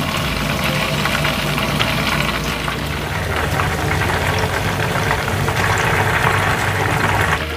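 Chicken pieces deep-frying in a pot of hot oil, a steady sizzle and bubbling, as the pieces are lifted out with a wire strainer at the end of their first fry. The sizzle grows louder near the end.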